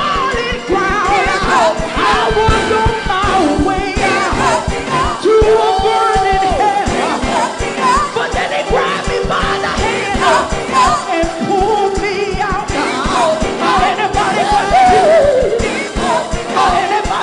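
Gospel choir singing with a live band, sung lines and held notes over a steady drum beat.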